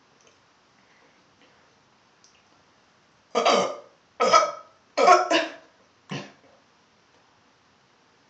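A person burping loudly several times in a quick run, about a second apart, the last burp shorter and quieter: gas coming up after chugging carbonated Diet Coke.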